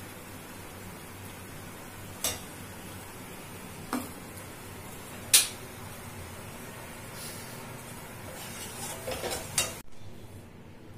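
Steel spatula clinking and scraping against a stainless steel bowl and pan while cooked vegetables are served: three sharp clinks a second or two apart, the third the loudest, then a few lighter knocks near the end.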